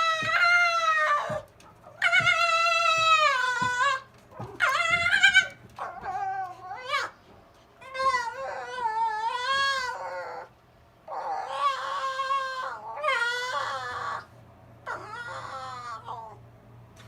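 Silver fox whining: a string of about eight high, wavering whines, some long and drawn out, others short with a rising end, with short breaks between them.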